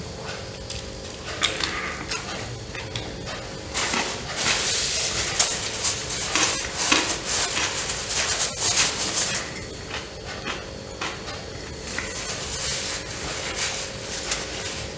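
Close-miked chewing of a sandwich in a soft bread roll, with wet mouth clicks and smacking, loudest in the middle stretch. A faint steady hum runs underneath.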